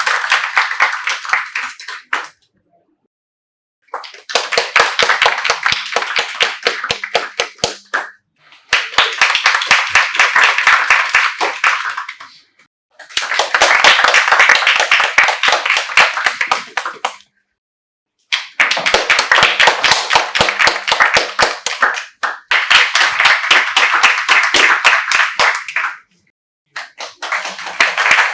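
Hand clapping from a small group, dense and quick, in stretches of about four seconds that each fade out and are broken by short silences, like a repeated applause sound effect.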